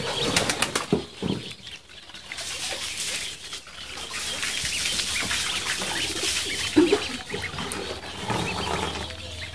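Ducklings splashing and paddling in a tub of water, with short, high peeping calls scattered throughout.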